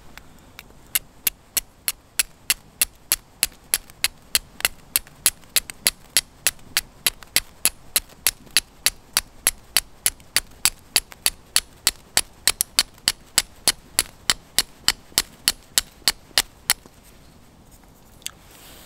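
Traditional steel fire striker struck down the edge of a hand-held flint in quick, regular strokes, about three a second, sending sparks onto charred tinder fungus to catch an ember; the striking stops near the end.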